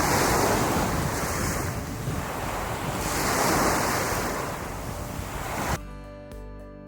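Waves breaking on a sandy beach, the surf swelling twice, with wind buffeting the microphone. The sound cuts off abruptly near the end and is replaced by background music with clear instrument notes.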